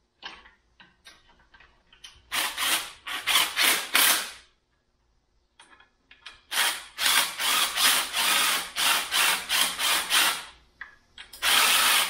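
Cordless power driver run in a string of short trigger bursts, spinning nuts onto the engine mount studs. It starts with a few light clicks, then runs in two long runs of rapid bursts with a pause between them, and gives one more burst near the end.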